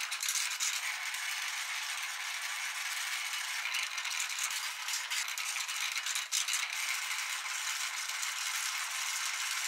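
Hand-cranked metal meat grinder grinding a silicone pop-it fidget toy: a steady gritty rattling, with scattered sharp clicks.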